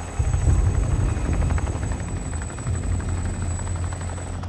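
Eurocopter EC665 Tiger attack helicopter flying low: a steady, fast rotor chop over engine noise, which gets louder about a quarter of a second in.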